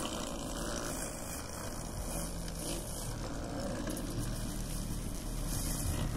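Homemade electric lawnmower running: its 24 V electric blade motor, taken from a scooter, spins a brush-cutter blade through the grass while hoverboard hub motors drive it across the lawn, giving a steady whirring noise.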